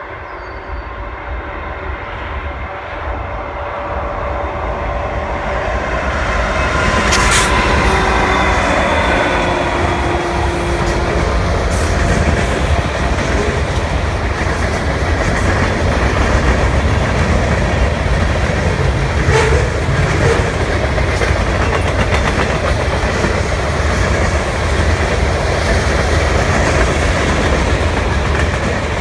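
A CN train going by. The locomotive grows louder over the first several seconds and its engine tones drop in pitch as it passes. After that comes a steady loud rumble and clickety-clack of railcars rolling past, with a sharp clank about seven seconds in and another near the middle.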